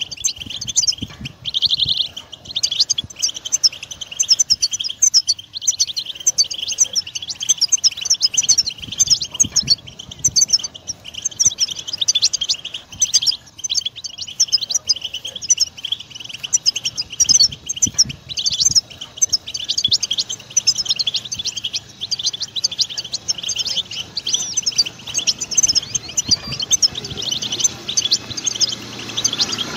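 European goldfinch song: a fast, unbroken twittering of high chirps and trills.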